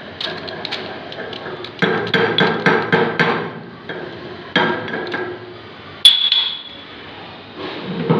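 Metal knocking and clanking as the jammed feed screw is worked loose and pulled out of a meat mincer's barrel, which is packed with leftover ground material. There are runs of quick knocks, about four a second at their fastest, and one sharp ringing clang about six seconds in.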